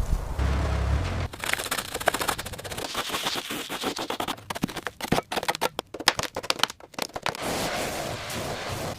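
Rapid, irregular sharp clicks and knocks of workshop tools at work, with a low rumble just after the start.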